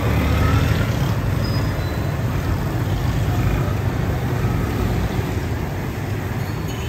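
Steady mechanical rumble of a converted drill press driving a paddle that stirs peanuts in a large wok, with the peanuts rattling and churning against the pan.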